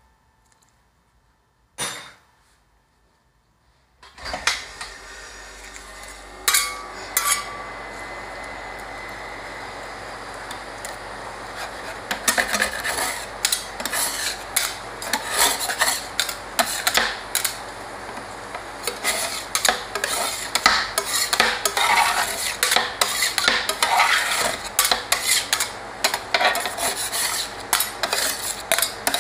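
Two metal spatulas chopping and scraping on the steel cold plate of an ice cream roll machine, working jelly drink into the cream base: quick clicking strikes and scrapes that start about four seconds in and become a dense, busy run after twelve seconds, over a steady low hum. A single knock about two seconds in, with near quiet before it.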